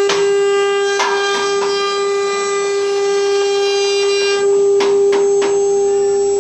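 CNC router spindle running at a steady speed with a constant high whine. Several sharp knocks or clicks come through it, a few in the first two seconds and three more near the end.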